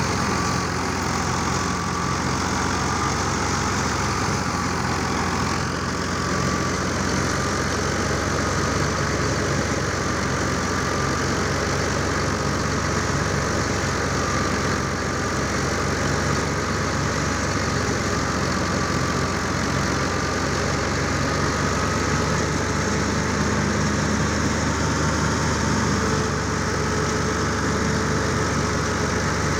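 Tractor diesel engine running steadily under load, driving a wheat thresher through its PTO shaft, with the thresher's drum churning as sheaves are fed in. A thin, slightly wavering whine sits above the engine.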